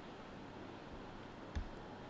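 Steady low hiss with a single short dull thump and a faint click about one and a half seconds in.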